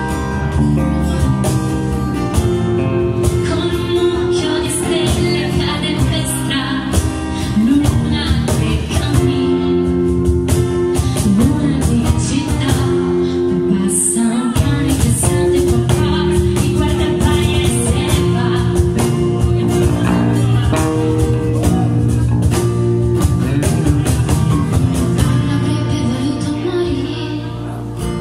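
Live music: a woman singing into a microphone over band accompaniment with percussion.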